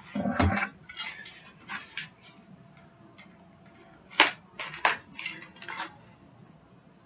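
Packaging and a hard plastic graded-comic slab being handled: a run of short rustles and light knocks, a quiet pause, then a sharp click about four seconds in followed by more rustling.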